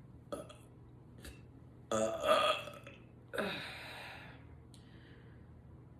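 A woman's loud burp about two seconds in, followed by a second, longer and breathier sound that fades away.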